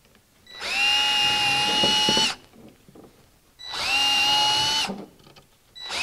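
Cordless drill with a 1/8-inch bit running in short bursts: twice, and starting again near the end, each burst winding up to a steady whine and then stopping. The bit is chasing old stitch holes in a wooden kayak coaming to break the seine-twine stitches holding the old skin.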